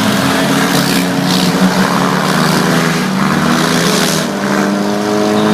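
Engines of four-cylinder demolition derby cars running together in a steady mechanical drone.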